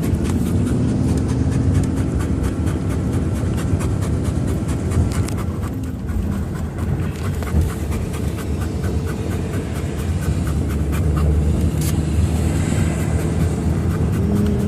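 Steady road and engine rumble inside a moving car's cabin, with a Great Dane panting close by.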